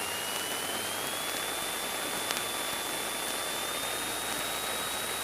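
Steady engine and propeller noise inside the cabin of a Cessna 172 Skyhawk taxiing, with a thin high whine that rises slightly in pitch over the first second and a half and then holds steady.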